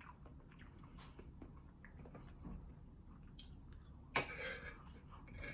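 Close-miked chewing of baked macaroni and cheese: soft wet clicks and mouth smacks, with one louder smack about four seconds in.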